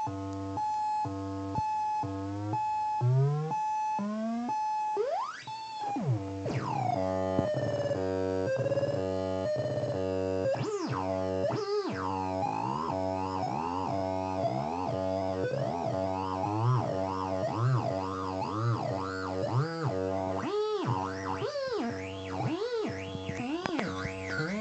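Homemade four-oscillator synthesizer built into a doll's head, its pitches steered by photosensor eyes. It starts as a chopped, pulsing buzz with a steady high tone and quick rising glides, then about six seconds in turns into a continuous warble of repeated up-and-down pitch swoops as a hand shades its eyes.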